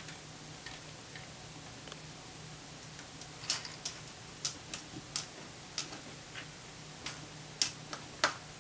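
About a dozen sharp, irregular clicks and ticks, starting about three seconds in, from two dogs at a stainless steel bowl of dry kibble. A faint low hum runs underneath.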